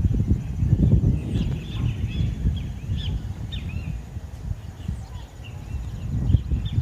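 Birds chirping, with many short, quick, sliding calls, over a low rumble that rises and falls.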